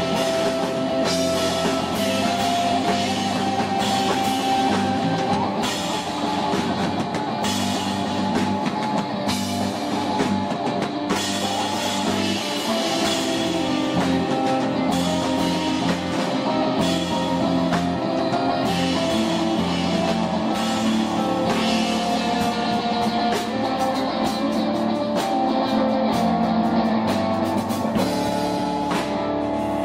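Live rock band playing: a guitar over a drum kit with steady cymbal and drum hits, loud and continuous.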